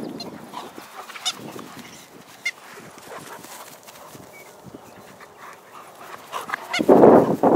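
German Shepherd dogs running and playing on grass, with scattered soft footfalls and two short, high-pitched yelps about one and two and a half seconds in. Near the end, wind gusts across the microphone.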